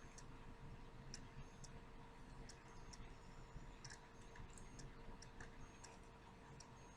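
Near silence: room tone with a faint steady hum and soft, irregular clicks, roughly one or two a second.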